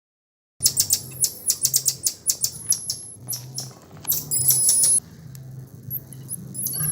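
Birds chirping, in quick sharp clicks and short thin high whistles, cutting in suddenly about half a second in.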